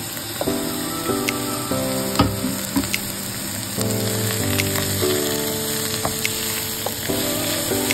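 Rice frying in a stainless steel pot, sizzling steadily while it is stirred with a wooden spoon that knocks against the pot now and then. Background music plays over it.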